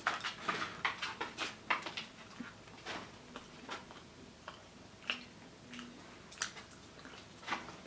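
BeanBoozled jelly beans being chewed: small wet mouth clicks and smacks, coming thick and fast for the first few seconds, then fewer and further apart.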